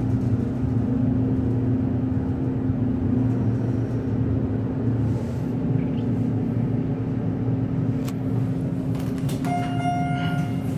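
Schindler hydraulic elevator car riding up with a steady low hum. A click comes near the end, then a single steady electronic chime tone lasting about a second as the car reaches its floor.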